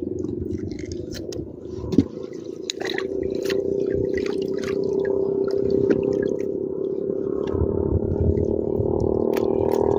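Splashing and dripping of shallow water with clicks and rustles as a gill net is handled and fish are picked out of it by hand, over a steady low droning hum; a sharp knock about two seconds in.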